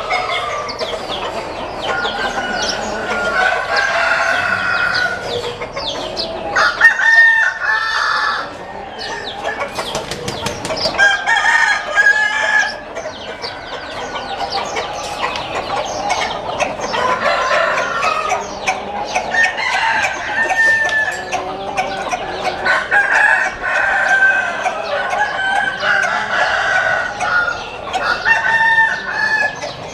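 Many chickens in a flock calling at once: roosters crowing over one another amid continual clucking.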